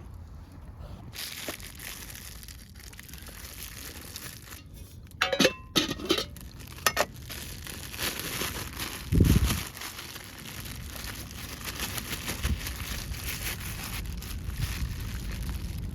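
Continuous crinkling and rustling, with a few sharp clinks a little after the middle and one dull thump soon after.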